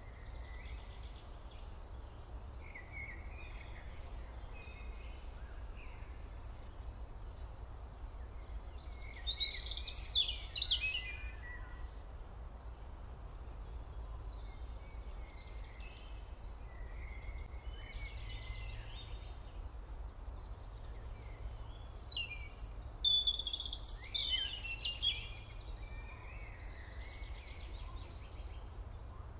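Birds singing over a steady low hum: a high, regular chirp repeats about twice a second, with two louder bursts of varied song, one about a third of the way in and one past two-thirds.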